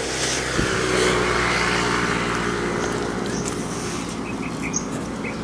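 A motor vehicle's engine passing on the road: a steady engine hum with a rushing noise that swells over the first couple of seconds and then slowly fades.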